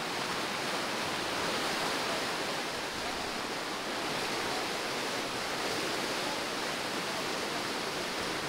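Rapids of a man-made white water course rushing steadily.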